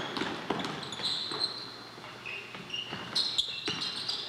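Basketball dribbled on a gym floor, a thump every half second or so, with short high sneaker squeaks on the court.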